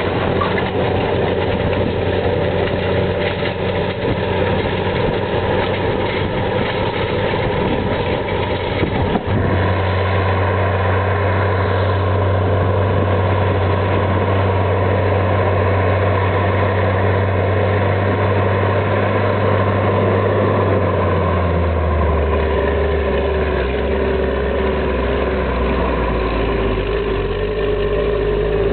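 Versatile 2375 four-wheel-drive tractor's Cummins six-cylinder diesel engine running steadily under heavy draft load, pulling a cultivator through stubble. The engine note changes abruptly twice, about a third of the way in and again later.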